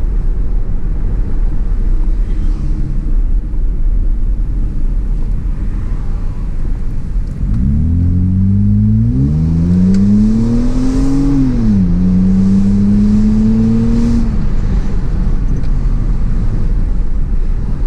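Hyundai Azera V6 with its rear mufflers removed, heard from inside the car: a low cruising drone, then about seven seconds in a hard acceleration with the engine note climbing steeply, dropping at an upshift, holding in the next gear and easing off as the throttle is lifted.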